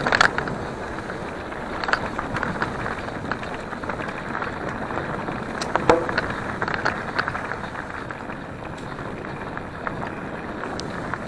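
Mountain bike riding over a dirt forest trail, heard from the handlebars: a steady rush of tyre noise with the bike rattling and clicking over bumps, roots and stones, and a sharper knock about six seconds in.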